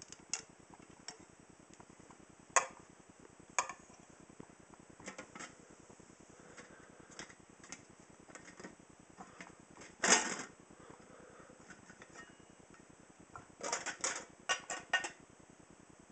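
Aluminium camping cookware (pot, lid, frying pan with folding handle and mug) clinking and knocking as it is handled and nested. A louder clatter about ten seconds in, and a quick run of clinks near the end.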